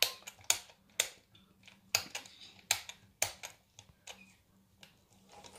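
The plastic symbol dial of an L.O.L. Surprise Under Wraps capsule's combination lock clicking as it is turned notch by notch: sharp single clicks about half a second to a second apart, growing fainter and sparser in the last couple of seconds.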